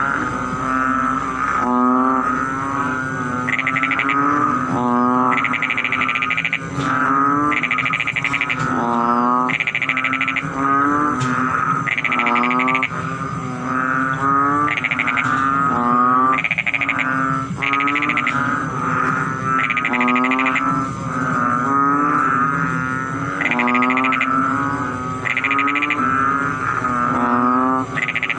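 Several frogs calling together in a continuous chorus of overlapping pulsed croaks, each call lasting about a second and repeating every second or two.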